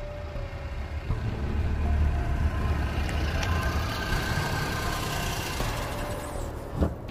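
A small hatchback car drives up and pulls to a stop. Its engine is loudest about two seconds in, then runs steadily at idle. A single sharp knock comes near the end.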